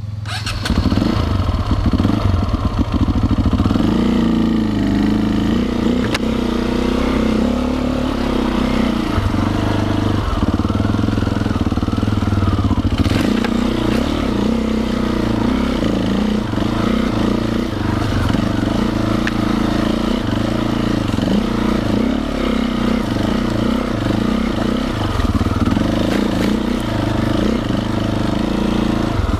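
Enduro motorcycle engine running off-road, its pitch rising and falling constantly with the throttle. There is a single sharp knock about halfway through.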